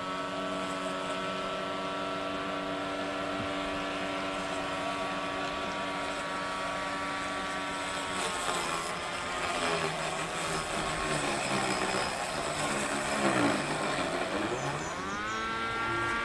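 An engine running at a steady speed. About halfway through its pitch sags and the sound turns rougher for several seconds, then climbs back up near the end.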